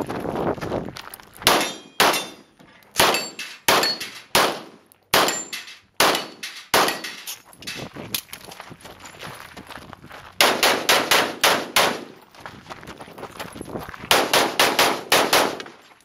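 Pistol shots from a practical shooting stage. Single shots and pairs are spaced out over the first seven seconds, then two fast strings of about six to eight shots each come about ten seconds in and near the end.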